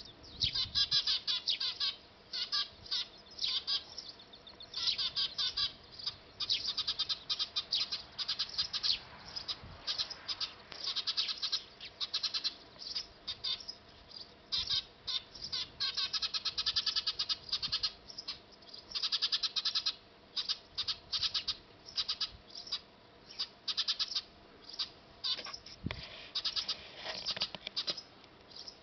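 Eurasian tree sparrows chirping in quick, overlapping bursts of a second or two, with short pauses between.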